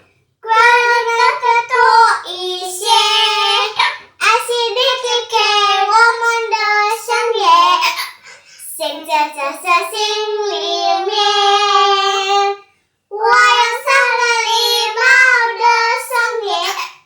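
A young child singing a song in a high voice, in phrases cut short by hiccups.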